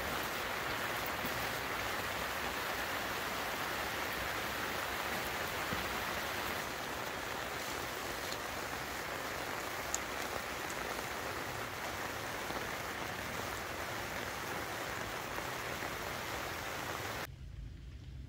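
Heavy rain falling steadily on grass and trees, an even hiss, with one sharp tick about ten seconds in. The rain sound stops abruptly near the end.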